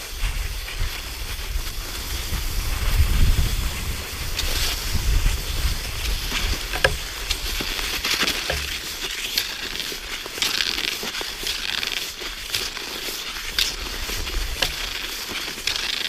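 Steps crunching through cold, dry snow in an irregular run of crisp crackles, with wind buffeting the microphone as a low rumble, strongest in the first half.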